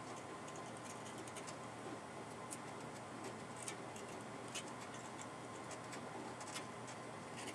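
Faint, scattered light ticks of a small metal hand tool pressing and trimming blue painter's tape against an engine block, over a steady background hiss.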